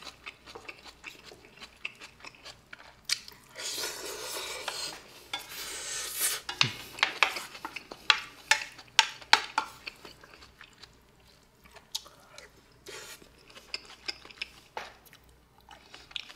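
Close-miked eating of hamburger steak in sauce: chewing, with a metal spoon clinking and scraping against a stainless-steel pan. The clicks come again and again, with a longer noisy stretch of a few seconds about four seconds in.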